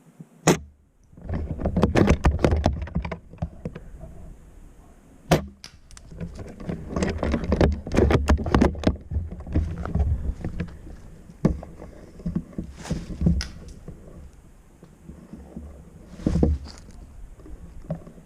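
Airsoft guns firing: single sharp shots a few seconds apart, about half a second in, about five seconds in and again later. Between them come stretches of dense knocking and rustling.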